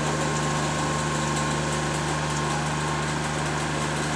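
Small paddy tractor's engine running steadily at a constant speed, an even drone with no change in pitch or level.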